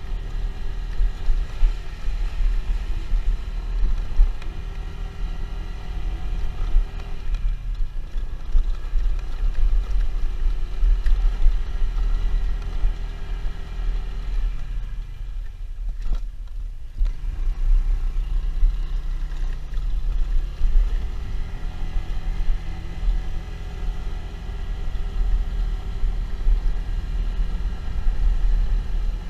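Motorcycle engine running under way, with its pitch shifting as the throttle changes under a deep steady rumble. Around the middle it eases off briefly, then picks up again with a rising note.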